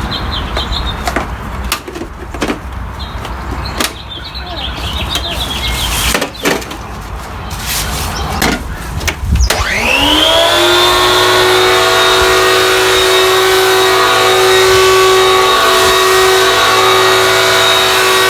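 Scattered plastic clicks and knocks, then about nine seconds in the corded Garden Groom Midi hedge trimmer's electric motor starts with a quick rising whine. It then runs steadily with a loud, high, many-toned hum, driving its blades and clipping-suction fan.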